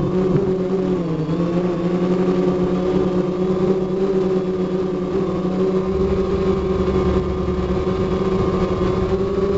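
Multirotor drone's motors and propellers humming steadily in flight, heard close up from a camera mounted on the aircraft; the pitch dips briefly about a second in.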